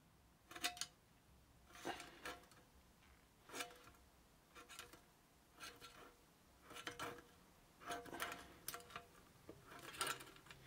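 Flat blade of a high-carbon-steel keyring screwdriver prying at the rim of a metal paint tin's lid: faint short metallic clicks and scrapes, about one a second, some with a faint ring from the tin. The lid is not yet giving way.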